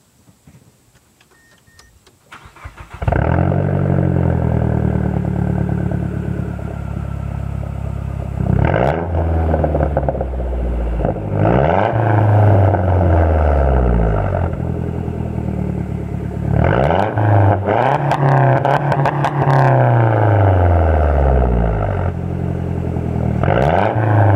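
A 2012 Mazdaspeed 3's turbocharged 2.3-litre four-cylinder starts about three seconds in and runs through a catted downpipe, straight test pipe and 3-inch stainless cat-back with no resonator. It is revved about half a dozen times, each rev rising and falling in pitch between stretches of idle.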